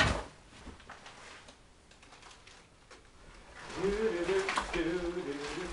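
A sharp click at the very start, then a quiet stretch, then from about three and a half seconds in a man's wordless singing in short held notes.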